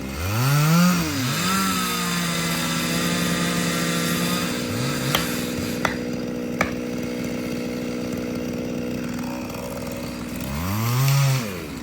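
Chainsaw revved up and back down, then held running at a steady high speed for several seconds, and revved again near the end. Three short sharp clicks sound in the middle.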